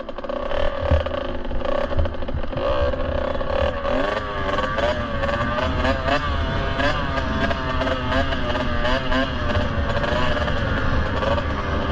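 Kawasaki KX65's small two-stroke single-cylinder engine running while the bike is ridden, its pitch rising and falling repeatedly from about four seconds in as the throttle is worked. A low rumble of wind on the microphone runs underneath.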